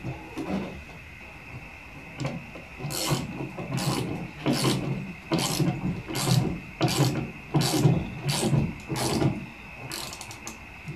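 Ratchet wrench turning a nut onto a bolt through a wooden post, in about ten short, regular strokes roughly three every two seconds, starting about three seconds in. The nut is being snugged up, not yet fully tightened.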